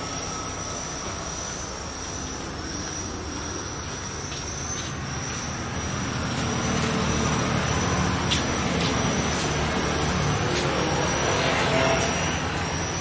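A vehicle engine running near the workshop, its hum growing louder through the second half, over a steady thin high-pitched tone. A few light metallic clicks come from parts being handled on a motorcycle engine.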